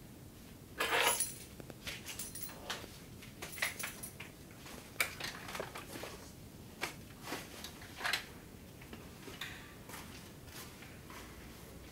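Household handling noises: a scrape about a second in, then irregular small clicks, rattles and knocks as a door handle and latch are worked and the door is opened.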